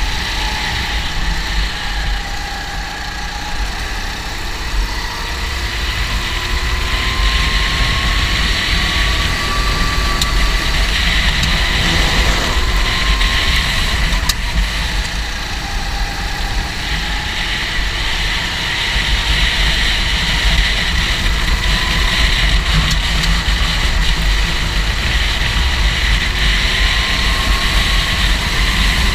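Go-kart engine running, its pitch rising and falling as the revs change, over a strong low rumble.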